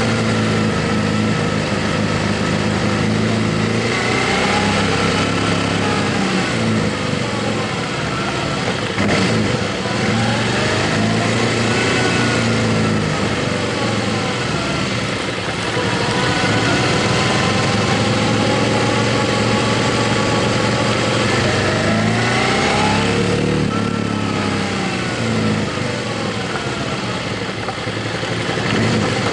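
Motorcycle engine running on the road under wind rush, its note rising and falling a few times as the speed changes.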